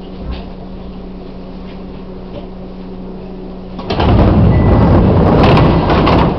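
Chichibu Railway 1000-series electric train (ex-JNR 101 series) standing at a platform, its onboard equipment humming steadily. About four seconds in, a loud rushing clatter from the train's sliding doors lasts about two seconds, then the hum carries on.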